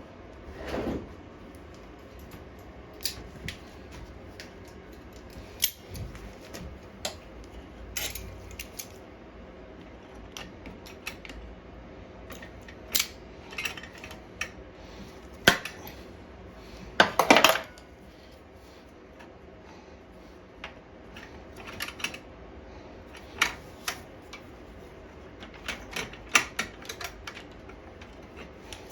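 Irregular metallic clinks, clicks and knocks of hand tools and metal parts being handled while a lawn mower is taken apart, with a brief louder clatter a little past halfway.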